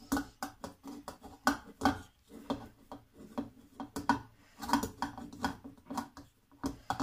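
Fingertips patting and pressing soft pizza dough flat into a stainless steel plate: an irregular run of quick soft taps, several a second, with the plate knocking faintly.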